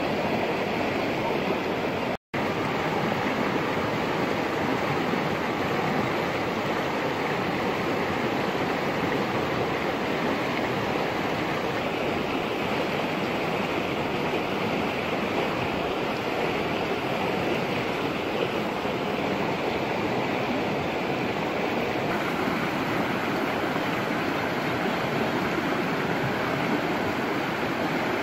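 A river rushing steadily, with a momentary cut-out of the sound about two seconds in.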